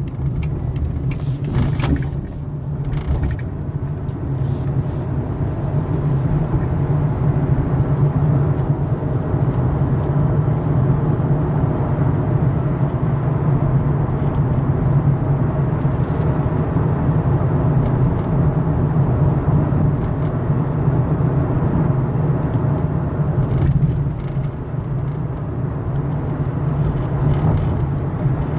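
Car driving along, heard from inside the cabin: a steady low drone of engine and tyre noise, with a few light clicks in the first few seconds.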